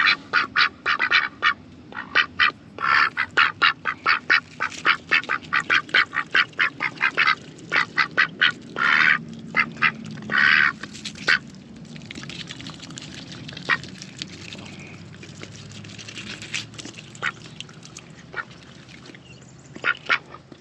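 Young Pekin ducks quacking in quick, loud, repeated calls. The calls thin out about halfway through, leaving a quieter stretch with a few sharp clicks.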